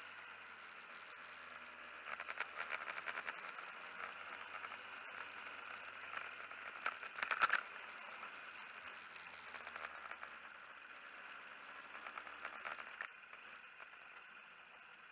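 Honda CBR1000RR's inline-four engine running quietly at low revs as the bike rolls at slow speed. Brief bursts of rapid clatter come about two seconds in and, loudest, about seven seconds in, and the engine's low note fades after about ten seconds.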